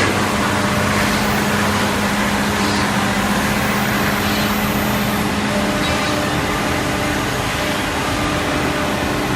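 CNC horizontal edge-drilling machine running: a steady machine whir with a strong low hum that eases off about six seconds in.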